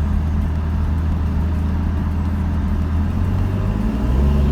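1997 Ford F-150's 4.2-litre V6 running steadily in fourth gear while driving, a low even drone; about four seconds in the engine note gets a little louder and fuller. The 4R70W transmission has just upshifted normally through the gears after its 1-2 accumulator springs and piston were replaced.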